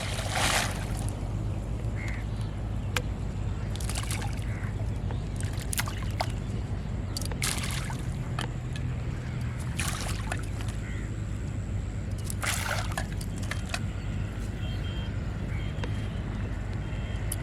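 Water sloshing and splashing in short bursts every few seconds, over a steady low hum.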